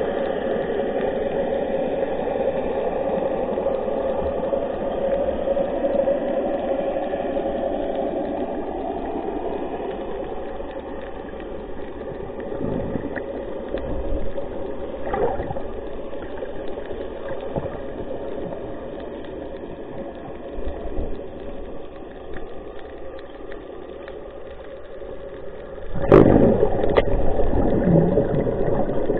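Boat engine running steadily; a louder sudden noise breaks in near the end.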